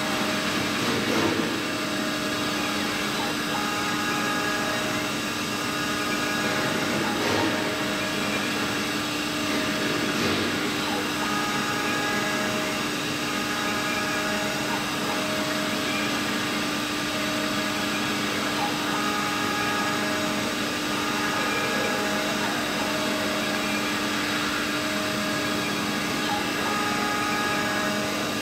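Small 5-axis CNC router running as it carves a bust, its spindle giving a steady whine with several constant tones.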